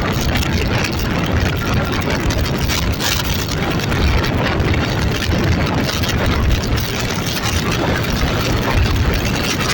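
A vehicle engine running steadily, with a loud, even rushing noise and no change in speed.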